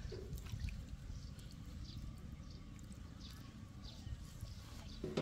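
Faint trickle of water being poured onto potting mix, over a low rumble with a few faint high chirps or drips.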